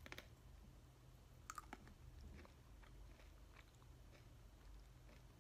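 A crunchy snack stick bitten and chewed close to the microphone: two crisp crunches, one at the start and one about a second and a half in, then fainter chewing clicks.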